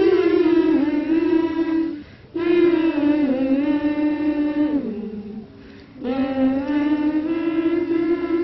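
A single voice singing unaccompanied in long held notes, in three drawn-out phrases with short breaks between, the second sliding down at its end.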